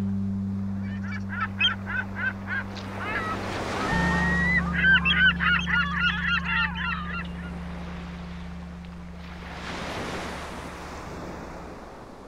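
Gulls calling: a run of about six short calls, then a dense flurry of overlapping calls for a couple of seconds, over steady sustained music chords. A wash of surf swells and fades near the end.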